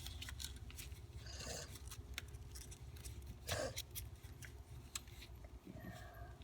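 A folded paper airplane being handled and re-creased by hand: scattered crinkles, small taps and rustles of paper, the loudest about three and a half seconds in, over a steady low hum.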